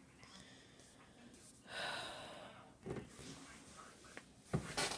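A person breathing out once, a short breathy hiss about two seconds in, with faint handling knocks after it and a sharper knock near the end.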